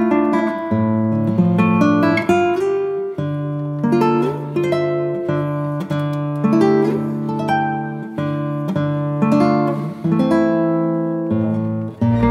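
Background music on acoustic guitar: plucked, lightly strummed chords with a new chord about once a second.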